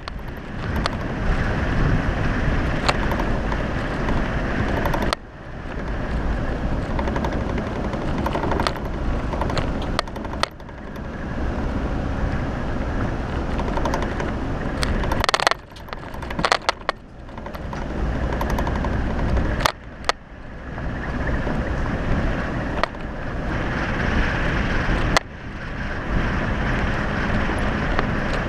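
Jeep Wrangler driving along a dirt off-road trail: engine running with tyre and trail noise, and sharp knocks and rattles from the vehicle jolting over rough ground. The level dips suddenly every five seconds or so.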